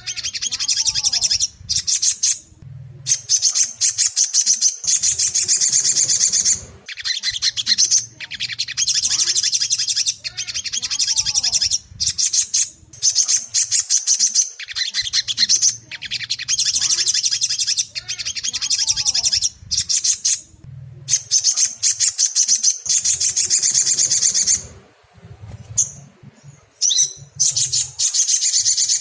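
Ruby-cheeked sunbird (sogok ontong) song: long bursts of rapid, high twittering chatter broken by short pauses, the same sequence of phrases coming round again about every eight to nine seconds.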